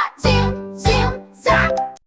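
Children's cartoon music with bass notes on a regular beat.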